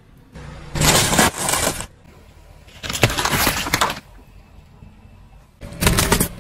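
Car tyre rolling over and crushing objects on asphalt: three separate bursts of crunching and cracking, each a second or less long.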